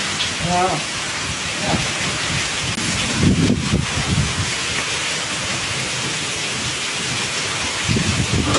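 Rain falling steadily, a continuous hiss with no break. A brief voice is heard just after the start.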